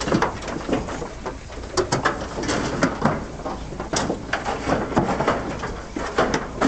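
Cattle moving about inside a double-decker stock crate, their hooves and bodies knocking against the trailer's floor and sides in irregular knocks and clatters, over a steady low rumble.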